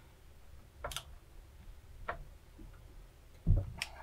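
Three small sharp clicks of metal battery-cable ring terminals being turned and seated on a motorcycle battery post. A dull knock comes about three and a half seconds in.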